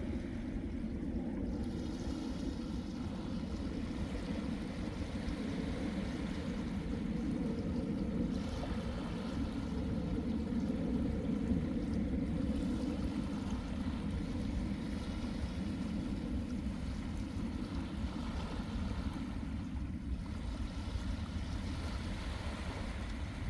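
Sea waves washing onto a beach in a continuous low wash that swells gently and eases off.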